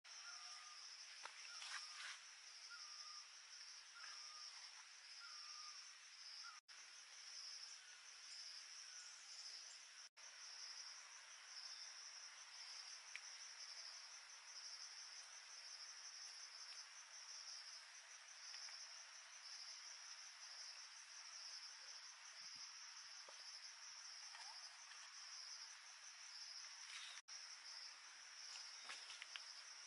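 Insects chirring steadily in a high, evenly pulsing drone, with a few short chirps of another kind in the first six seconds.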